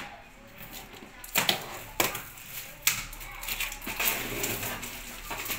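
Hands working at a cardboard box to open it: a few sharp taps and clicks on the cardboard, then a stretch of scraping and rustling from about halfway through.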